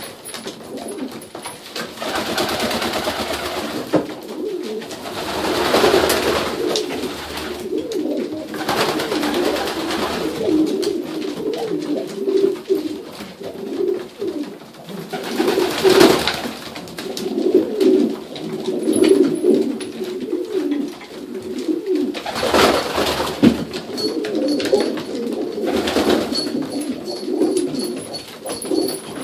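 A flock of domestic pigeons cooing continuously, many birds overlapping, with several louder rushes of noise a second or so long.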